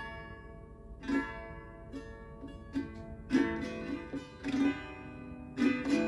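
Acoustic plucked-string instrumental intro to a song: single notes and chords picked one after another, each ringing on before the next.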